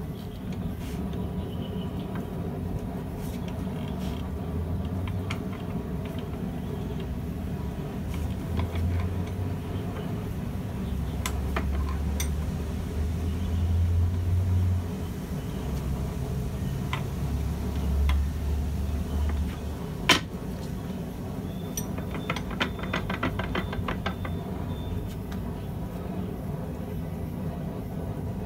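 Hand hammer striking the red-hot jaws of a blacksmith tong clamped in a bench vise while the jaws are reshaped: scattered sharp metal knocks, the loudest about twenty seconds in, then a quick run of light ticks. A steady low hum runs underneath.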